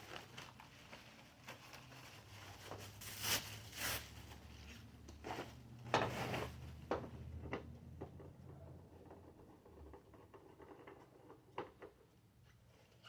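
Handling noises: scattered clicks, knocks and rustling, loudest a few seconds in and around six seconds, over a low steady hum that cuts off about ten seconds in.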